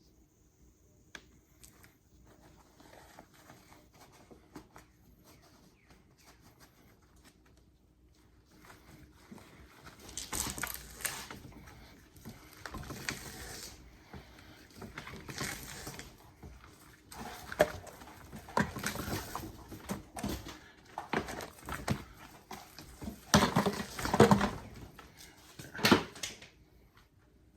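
Stripped 4/0 copper cable being worked by hand: faint handling clicks at first, then from about ten seconds in a series of uneven scraping and rustling bursts as the bare copper strands are pulled and worked free of the plastic core.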